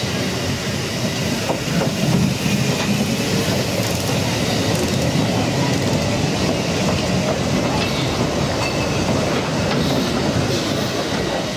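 Narrow-gauge steam train passing close by: the L&B-design 2-6-2T tank locomotive Lyd runs past, then its wooden bogie coaches roll by with a steady rumble and wheels clicking over the rail joints.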